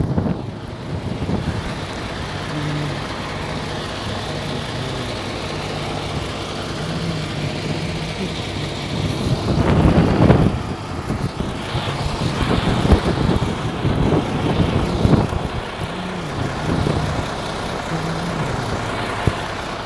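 MAN truck's diesel engine idling steadily, with a louder rush of wind on the microphone about halfway through.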